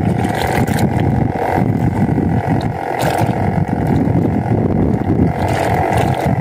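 Wind buffeting the microphone and choppy water slapping a small fishing boat, with a steady hum underneath and a few light knocks.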